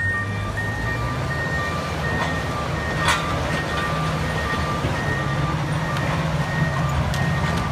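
Cat D9 and Komatsu D275 crawler dozers running with a steady low diesel drone while backup alarms beep over and over at two different pitches, showing machines reversing. A sharp clank of steel or rock about three seconds in, and a lighter one near the end.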